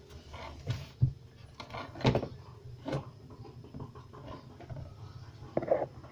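Clunks and rattles of a CRT TV's main circuit board being handled and turned over on a workbench, with several sharp knocks in the first three seconds and a short clatter near the end.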